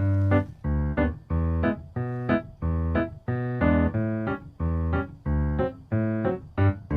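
Background music: a keyboard tune of chords over bass notes, played at a steady pace of about two notes a second.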